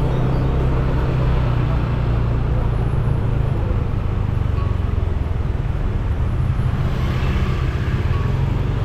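Steady low engine rumble and road noise of a car driving along a street, with no sudden events.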